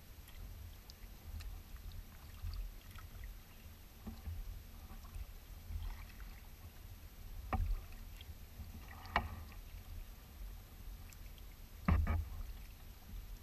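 Kayak being paddled: a steady low rumble with short knocks and splashes from the paddle strokes, three louder ones in the second half.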